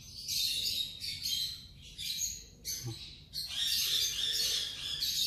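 Lovebird (Agapornis) nestling, about 8–9 days old, giving high, hoarse cheeping calls in short repeated bursts that run together more continuously in the second half. A small handling click comes near the middle.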